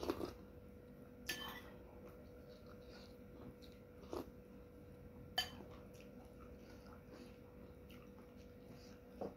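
Quiet eating of soup from a metal spoon: soft chewing and mouth sounds with a few sharp clicks and crackles, the loudest about five seconds in, and the spoon clinking against the bowl near the end. A faint steady hum runs underneath.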